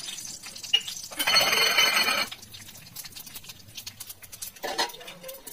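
Mustard seeds dropped into hot oil in a kadhai with frying dried red chillies sizzle loudly for about a second, then crackle in scattered pops as the seeds splutter. A metal lid clatters onto the pan near the end.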